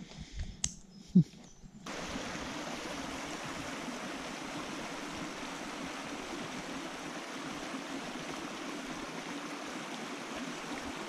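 A click and a short, falling low sound in the first second or so, then the steady sound of river water flowing, which starts abruptly about two seconds in.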